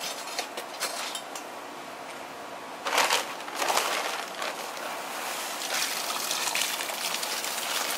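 Dry concrete mix pouring from a bag into a post hole around a wooden post, a steady hissing rush that grows louder in surges about three seconds in.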